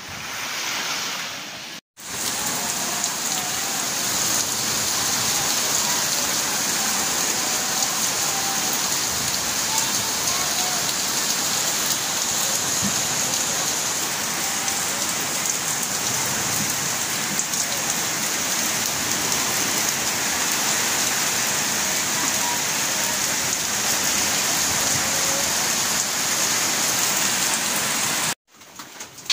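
Heavy rain falling steadily on a tarpaulin-covered roof, an even rushing patter. It is preceded by a brief stretch of surf that cuts off sharply about two seconds in.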